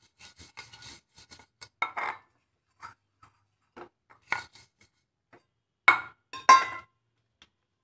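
Fingers rubbing butter around the inside of a fluted metal cake tin, with light scrapes and clicks as the tin is handled, and two louder ringing clinks of the tin about six seconds in.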